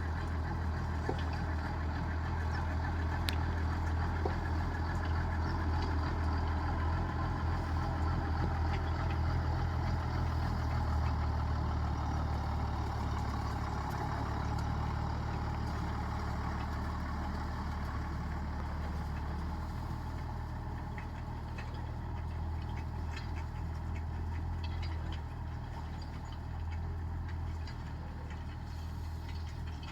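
Tractor engine running steadily, a continuous low drone.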